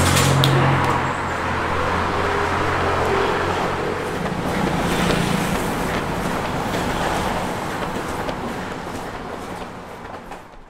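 Road traffic: a motor vehicle engine runs close by with a low hum that fades after about four seconds, over a steady traffic noise that fades out near the end.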